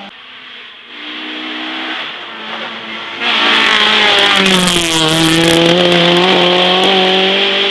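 Honda Civic rally car's engine approaching hard at high revs, then passing close and accelerating away, loud from about three seconds in; its pitch dips through the corner and climbs again. The sound cuts off abruptly at the end.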